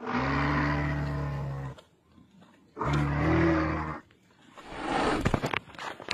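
Two long, low-pitched dinosaur roars from a walking triceratops costume, each about a second and a half, with a short gap between them. They are followed by a rougher, noisier growl with a few sharp clicks about five seconds in.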